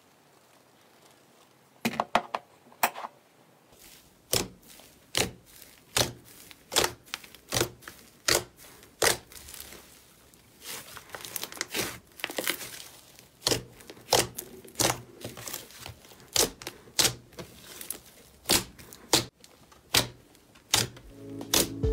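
White fluffy slime being stretched and pressed by hand, giving off a steady series of sharp pops as trapped air pockets burst, a little more than one a second. The pops start about two seconds in, with faint crackling between them partway through.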